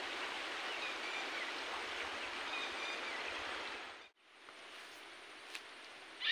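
Small rocky forest stream flowing, a steady rush of water. It cuts off abruptly about four seconds in, leaving faint quiet outdoor background.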